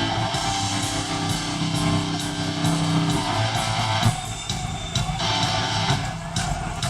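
Live hardcore punk band playing loud, with electric guitars and drum kit; the low end drops out briefly twice in the second half.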